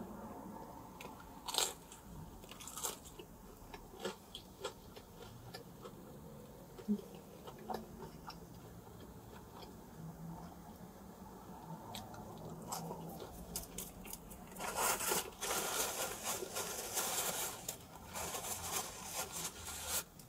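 A person biting and chewing pepperoni pizza close to the microphone: scattered small crisp clicks, then a denser stretch of crunching about three-quarters of the way through.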